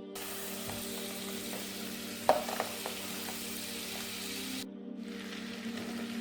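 Butter sizzling in a pan as the roux for a cheese sauce begins, with a single sharp clink of a utensil about two seconds in. The sizzle cuts out for a moment after about four and a half seconds, then carries on.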